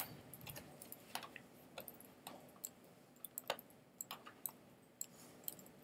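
Faint, irregular clicks from a computer mouse being operated, about a dozen scattered clicks.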